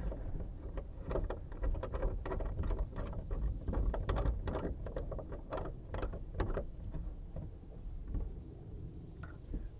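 Irregular small clicks and knocks of copper pipe stubs being handled and fitted up against a shower valve's fittings, over a steady low rumble.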